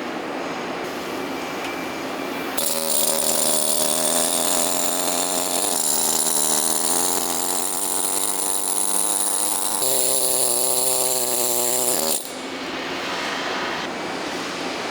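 Bearing-factory machinery running steadily. A couple of seconds in, a louder machine cuts in with a steady whine and hiss. Its pitch changes near ten seconds, and it stops abruptly about twelve seconds in.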